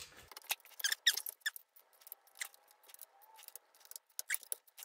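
Ratchet and socket breaking loose the main bearing cap bolts on an Audi 2.0 FSI engine block: scattered short squeaks and clicks at irregular intervals.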